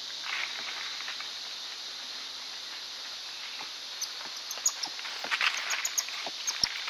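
Steady chorus of forest insects, with coatis rustling and scratching in leaf litter and on bark, their clicks and scuffles growing more frequent from about four seconds in.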